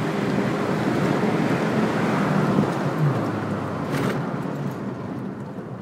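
Car engine and tyre noise heard from inside the cabin while driving, steady, with a short tick about four seconds in, fading near the end.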